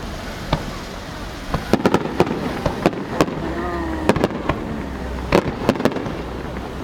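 Fireworks going off in a rapid series of sharp cracks and pops, thickening about two seconds in after a few single bangs. A voice is heard briefly in the middle.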